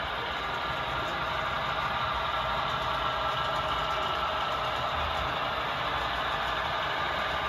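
HO-scale model diesel locomotive running on the layout, its onboard sound decoder playing a steady diesel engine sound through a small speaker.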